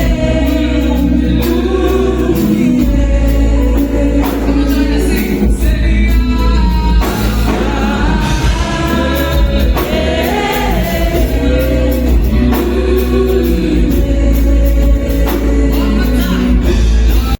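Gospel worship song: voices singing together over a heavy, steady bass.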